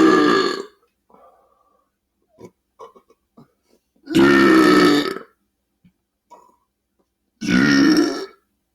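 A man belching loudly: one belch trailing off at the start, then two more drawn-out belches of about a second each, about four and about seven and a half seconds in. Faint short clicks sound between them.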